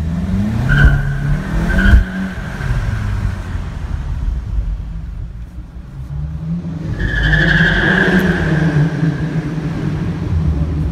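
A car engine revving hard and rising in pitch over the first two seconds, with a sharp loud knock at the top. It accelerates again from about six and a half seconds. High steady tyre squeals ride over both surges, loudest in the second.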